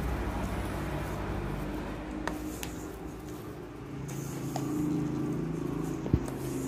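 A steady low mechanical hum, swelling a little near the end, with a few light clicks of a spoon against a steel mixing bowl.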